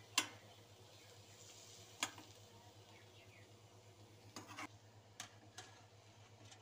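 Metal spatula clinking and scraping against a kadhai as a vegetable stir-fry is turned. The sharp clinks come every second or two, with a quick cluster a little past the middle, over a faint steady hum.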